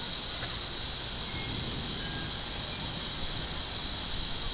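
Steady chorus of crickets and other insects on a summer evening, an even high hiss with a few faint short chirps and no thunder.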